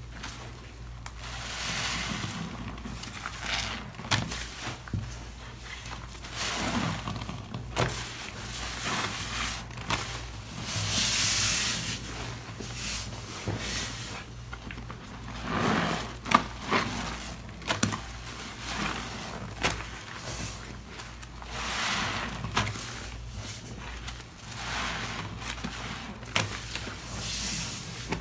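Soapy sponges, waffle-textured heart sponges and a white foam grout sponge, squeezed by gloved hands in a basin of thick dish-soap foam. They give repeated wet squelches and crackling suds every couple of seconds, with sharp clicks among them and one louder click past the middle.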